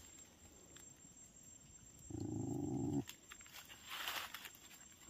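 A single drawn-out animal cry, steady in pitch and just under a second long, a little over two seconds in. Near four seconds in, a short rustle of the plastic bag being handled.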